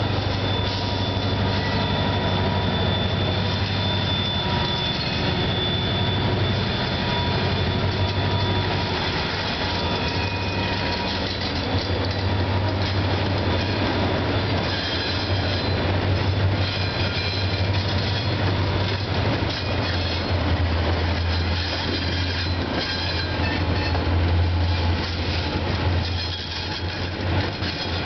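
A CSX freight train's lead diesel locomotives passing slowly at close range: an EMD SD40-2 followed by GE wide-cab units, the low engine hum growing loudest near the end as the ES44DC comes by. Steel wheels squeal in thin, high, on-and-off tones over the rolling rumble of the wheels on the rails.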